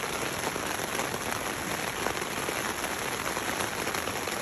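Heavy rain beating steadily on the fabric of a tent, heard from inside, a dense hiss full of fine drop impacts.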